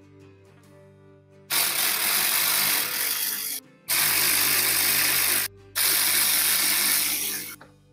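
Cordless power ratchet running in three bursts of about two seconds each, with short pauses between. It is driving the mounting fasteners of a car's rear window regulator and motor.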